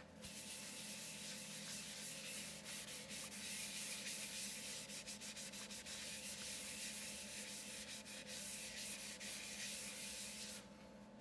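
Paper towel rubbed against a segmented wood bowl spinning on the lathe, wiping on finish: a steady rubbing hiss over the lathe's faint hum, cutting off sharply near the end.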